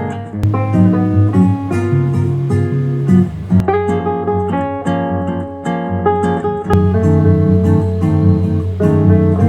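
Guitar music, plucked and strummed notes in a steady rhythm over a bass line, played through a speaker under test.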